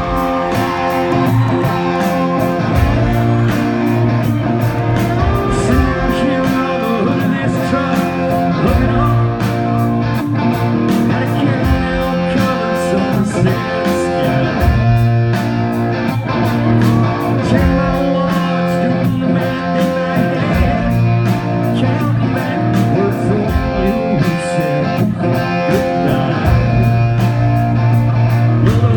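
Live country band playing, with guitars leading over a steady beat of drums and bass.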